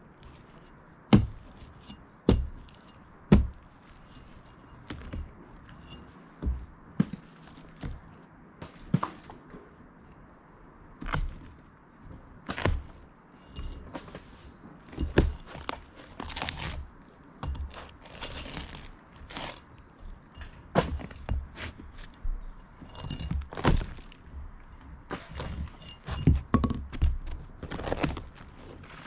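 Hammer blows at irregular intervals knocking apart rotten wooden boards at the edge of a roof, with crunching and cracking as the decayed wood is broken up and pulled away.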